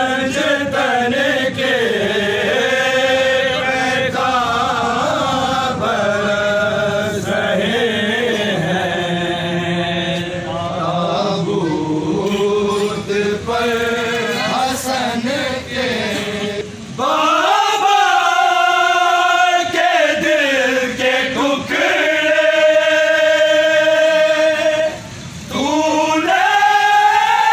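A crowd of men chanting a Shia mourning lament (noha) together, with one man leading the chant.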